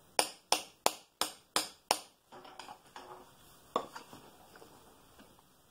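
Six quick, sharp metal-on-metal hammer taps, about three a second, on a screwdriver wedged against the shaft in a Bridgeport mill's J-head worm gear housing, trying to drive the shaft out. Then a few lighter clinks and one more tap.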